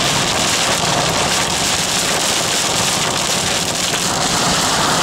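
Heavy rain pelting a car's windshield and roof, a steady dense hiss heard from inside the cabin.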